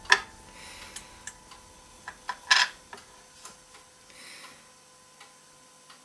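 A few sharp, irregular clicks and taps of small hard polymer-clay parts and painting tools being handled on a tabletop: one loud click at the start, a quick run of three about two seconds in, and fainter ticks and soft rustling after.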